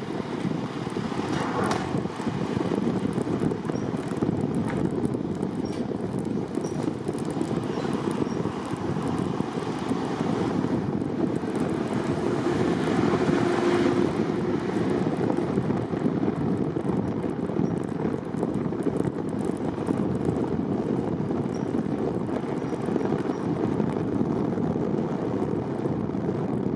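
Steady road and wind noise from a car driving along, swelling a little about halfway through.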